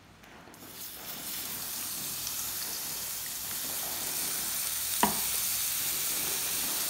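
Shrimp and mussels in olive-oil marinade sizzling as they land on the hot ribbed plate of an electric contact grill. The sizzle starts about half a second in and grows louder as more seafood goes on, with a single sharp knock about five seconds in.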